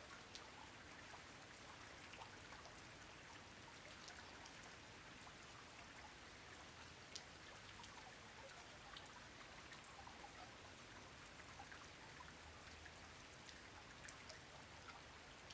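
Faint, steady rain, with the ticks of individual raindrops falling through an even hiss.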